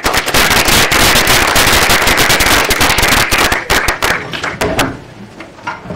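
Audience applauding: dense clapping breaks out suddenly, holds for about four seconds, then thins to scattered claps.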